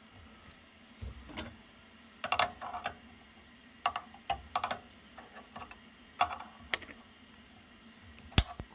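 Scattered sharp metal clicks and short clatters from a router bit and collet being handled during a manual tool change, as the bit is set in and loosened to extend it a little.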